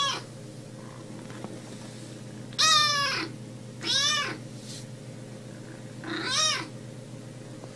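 Young grey kitten meowing: three high-pitched meows a second or two apart, each rising and then falling in pitch, after the tail of one meow at the very start.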